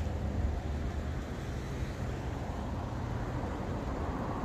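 Street ambience: the low hum of a nearby vehicle engine running, fading out about three and a half seconds in, over a constant low rumble of traffic and wind.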